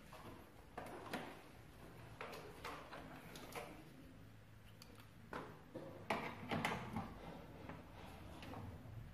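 Faint, irregular clicks and taps of small hard objects being handled on a tabletop, about a dozen in all, the loudest few coming about six to seven seconds in.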